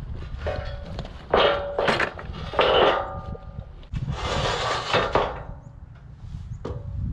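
Steel sawmill track sections being shifted on steel I-beams: two loud metal clanks, about a second and a half and about three seconds in, each ringing briefly, then a longer metal scrape about four seconds in.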